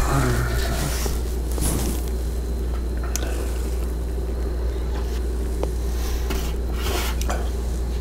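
Steady low hum, with a few faint brief rustles and clicks.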